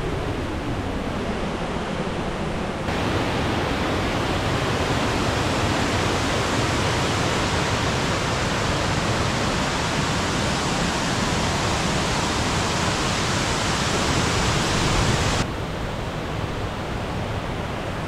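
Steady rush of a mountain stream, an even hiss of running water. It gets louder suddenly about three seconds in and drops back just as suddenly near the end.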